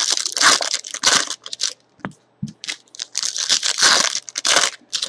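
Plastic trading-card pack wrapper being torn open and crinkled in the hands, a string of uneven crackling rips and rustles.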